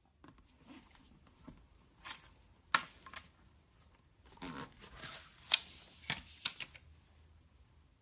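Slime being squeezed and poked by hand, giving a string of crisp clicks and pops with a softer squelch in the middle.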